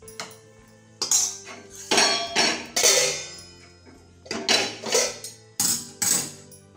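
Metal spoon scraping and knocking against a steel cooking pan and serving bowl as fried okra is dished out: a string of irregular clattering strokes with a metallic ring.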